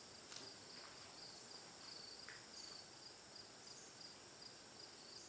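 Near silence, with a faint, steady, high-pitched chirring of crickets and one faint click about half a second in.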